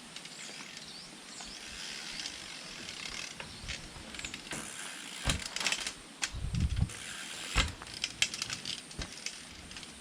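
Specialized P3 dirt-jump bike: rapid ratcheting clicks from the freewheel hub and rattling clicks from the bike over a rough hiss, with a few dull low thumps in the second half.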